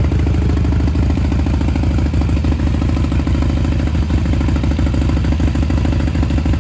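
Harley-Davidson Iron 883's air-cooled V-twin idling steadily with a fast, even pulse. The engine is warming up after being push-started on a battery run down from months of standing.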